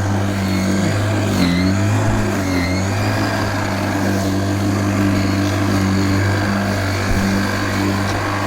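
Worx 40 cm cordless battery lawnmower running on turbo mode: a steady electric motor and blade hum whose pitch dips briefly twice in the first few seconds.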